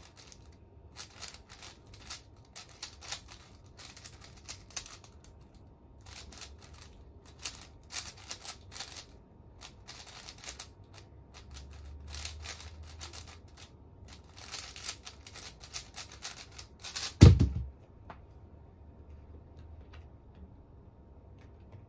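A 5x5 speedcube being turned fast by hand, its layers clicking and rattling in quick bursts broken by short pauses. About 17 seconds in comes a single loud thump on the desk as the solve ends.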